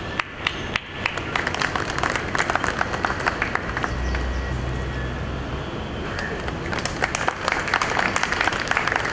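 Audience applauding: a few scattered claps at first, then steady applause from about a second in.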